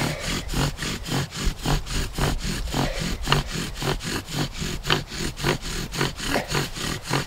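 Bow drill worked at full speed: the spindle grinds and squeaks in the fireboard notch with each stroke of the bow, an even rasping rhythm of about four strokes a second, as the smoking hearth is pushed toward an ember.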